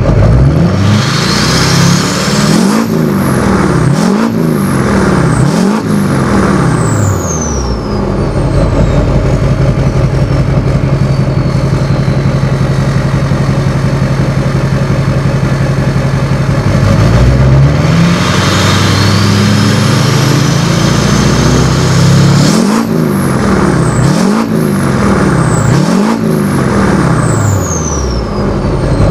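2004 LLY Duramax 6.6-litre V8 turbodiesel revving through a new 4-inch MBRP turbo-back exhaust: a run of quick rev blips, a steady held speed in the middle, then more blips near the end. A turbo whistle rises with each rev and falls away as the revs drop.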